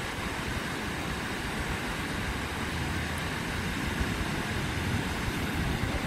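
Ocean surf breaking on a sandy beach: a steady, even rush of waves with no distinct crashes.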